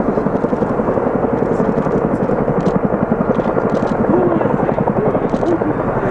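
A formation of military helicopters, tandem-rotor CH-47 Chinooks among them, flying past low together. It is a dense, steady beat of many rotors overlapping.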